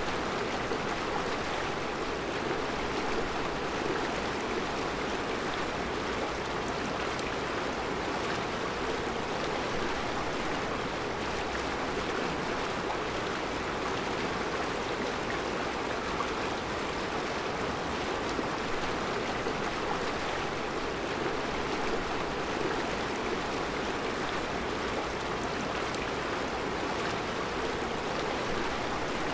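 Mountain river flowing over round rocks in a rocky riverbed: a steady rush of water.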